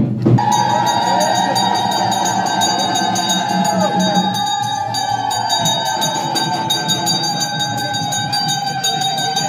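Temple bells ringing rapidly and continuously, a steady metallic ring that sets in suddenly just after the start, over the voices of a crowd.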